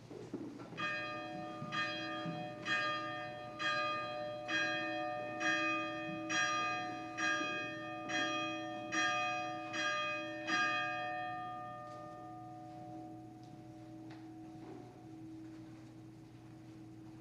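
A single church bell struck about once a second, roughly a dozen times, each stroke on the same pitch. Its ring dies away over a few seconds after the last stroke.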